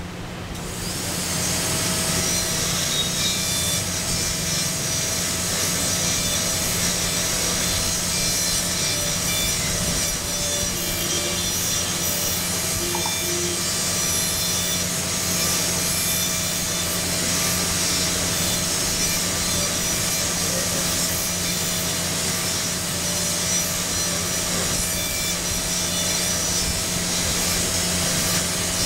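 High-speed dental handpiece running with an inverted cone diamond point, grinding into an ivorine typodont molar to smooth the pulpal floor and make the buccal and lingual walls converge. It spins up within the first second, then holds a steady whine over a grinding hiss.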